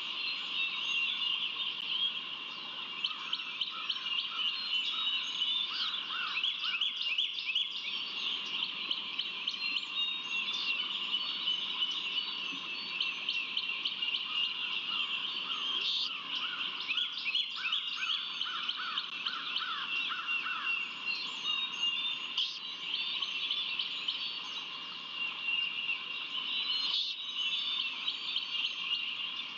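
Dawn chorus of many small birds chirping and trilling at once, over a steady high-pitched drone.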